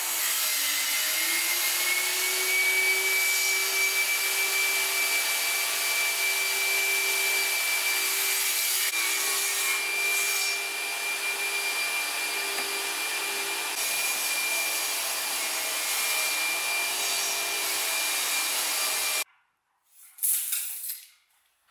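A workshop machine's electric motor running steadily with a high whine over a rush of noise, its pitch rising over the first two seconds as it comes up to speed, then stopping abruptly. A brief clatter of wooden boards follows near the end.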